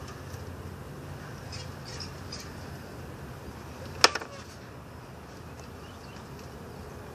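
A raccoon's clawed paws land on the rim of a plastic water tub, giving one sharp click about four seconds in, followed by a couple of softer ticks. A few faint high chirps come earlier over a low steady background.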